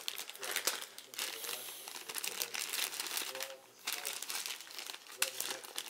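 Thin clear plastic bags of board-game pieces crinkling and crackling as they are handled and squeezed. The crackle is irregular, with a short lull near the middle.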